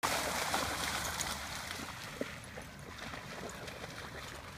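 Dogs running and splashing through shallow river water, loudest in the first second or so and fainter after.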